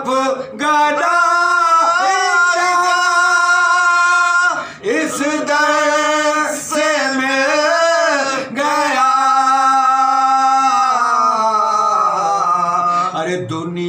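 Two men's voices chanting a soz, an Urdu mourning elegy, unaccompanied: long held notes with wavering ornaments, broken by short breaths about 5 and 8.5 seconds in.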